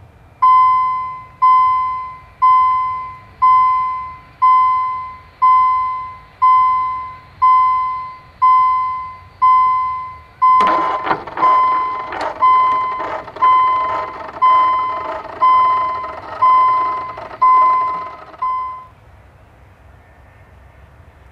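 An electronic alarm or signal tone ringing about once a second, each ring a single pitch that fades quickly, some eighteen times before it stops. From about halfway through, irregular clicks and a rattling clatter sound along with it.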